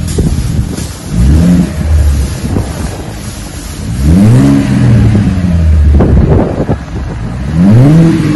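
2019 Chevrolet Camaro's 3.6-litre V6 revved from idle three times through a custom axle-back dual exhaust with Magnaflow straight-through mufflers, the active exhaust valves deleted. Each rev rises in pitch and falls back, the second and third longer. The tone is smooth, not loud, without the raspiness of the factory dual-mode system.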